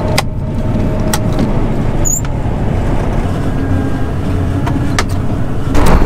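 John Deere 9500 combine running, heard from inside the cab, with a few sharp clicks as switches on the control console are flipped. Near the end the machine noise jumps suddenly louder as the operator leaves the cab.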